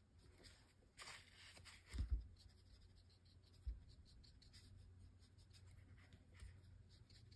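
Faint scratching of a watercolour brush stroking across paper, with a few dull low knocks about two seconds in and again near four seconds.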